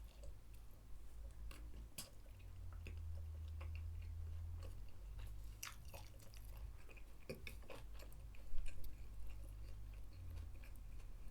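A person chewing a mouthful of McDonald's chicken burger close to the microphone, with irregular small mouth clicks and one louder knock about eight and a half seconds in.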